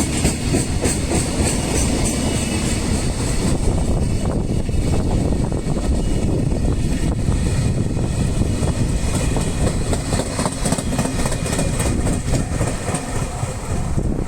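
Freight train wagons rolling past close by: a steady, loud rumble with the wheels clicking over the rail joints.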